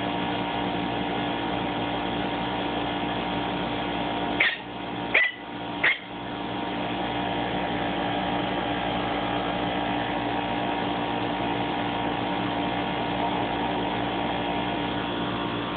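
A Maltipoo and a cat at play over a plush toy: three short, high squeaks about two-thirds of a second apart near the middle, over a steady hum.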